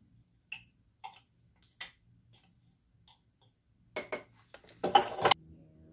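A spoon or spatula tapping and scraping inside a glass measuring cup as its contents are knocked out into a stainless steel mixing bowl: scattered light clicks, then a louder clatter about five seconds in.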